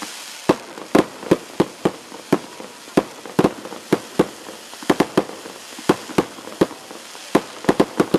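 Aerial fireworks bursting in a rapid, irregular string of sharp bangs, about three a second, over a steady hiss.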